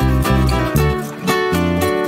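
Instrumental background music with plucked guitar-like notes over a pulsing bass line; the bass drops out briefly about a second in.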